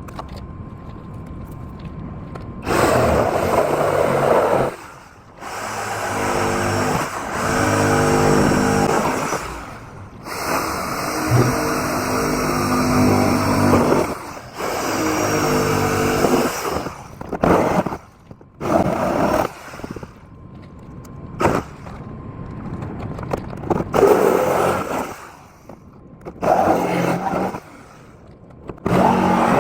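A power saw cutting through the bus's sheet-metal body, running in several bursts of a few seconds with short stops between, then a few shorter bursts near the end.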